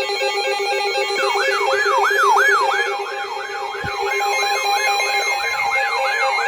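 Electronic siren yelping: fast rising-and-falling sweeps, about three a second, begin about a second in over a steady droning tone.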